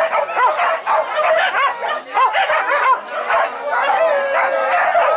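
A pack of boar-hunting dogs on leads, barking and yelping excitedly in many overlapping high-pitched calls.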